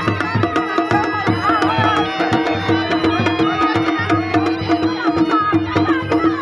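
Indian folk dance music with drums keeping a steady beat under a wavering melody line and a held drone note.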